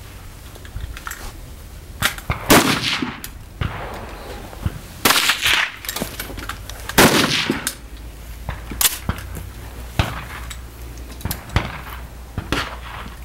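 Rifle shots from a highpower match firing line, about nine at an uneven pace, each with a short echoing tail; the loudest come a couple of seconds in and about halfway. Lighter metallic clicks fall between the shots.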